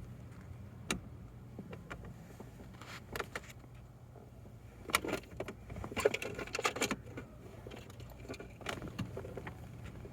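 Scattered clicks, knocks and jangles of objects being handled, over a steady low hum.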